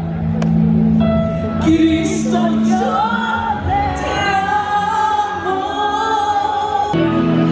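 Background music: a Spanish-language Christian worship song, a sung melody held over a steady accompaniment, which changes abruptly near the end.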